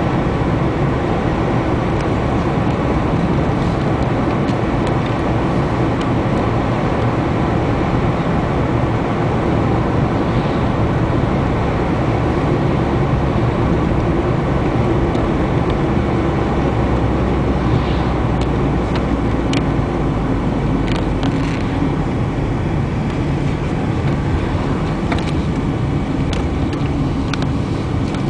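Steady road and engine noise of a moving car, heard from inside the cabin, with a few faint light ticks in the second half.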